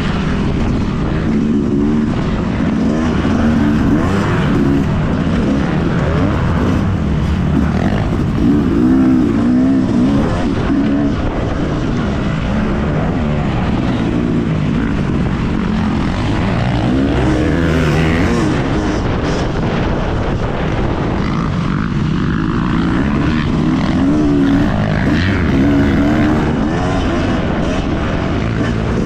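Yamaha motocross bike's engine heard from a camera on the bike while riding a dirt track, its pitch repeatedly rising and falling as the rider opens and closes the throttle and shifts.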